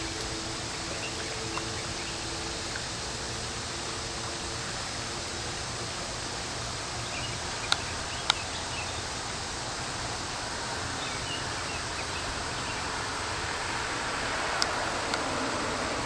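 Steady rushing of a flowing stream, with a couple of sharp clicks about halfway through and two more near the end.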